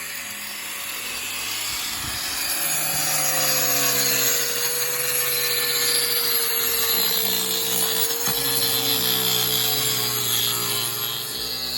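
Power tool cutting into a stucco wall to open it up and find a leak: a steady motor whine over a gritty grinding noise, growing louder about two seconds in.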